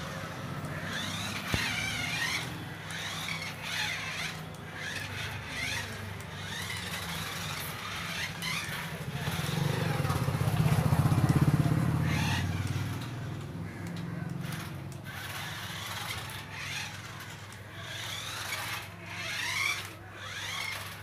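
A motor vehicle's engine hum, low and steady, swelling loud and fading again around the middle. Birds chirp over it.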